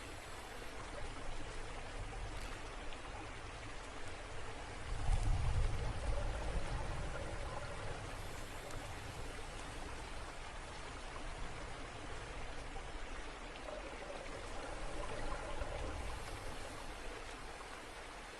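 Steady rushing, trickling water, with a deeper low surge about five seconds in and another near the end.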